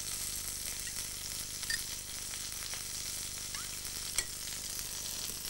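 Fish frying in a pan, a steady crackling sizzle. About four seconds in there is a single clink of a metal spoon against a glass bowl.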